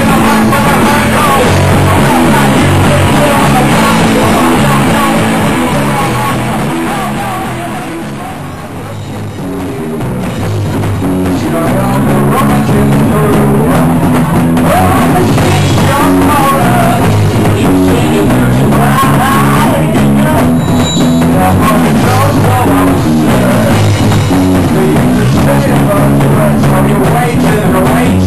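Live rock band playing loud: electric guitars, bass guitar and drum kit, with a male lead vocal. The band drops back briefly about eight seconds in, then the full sound builds back up.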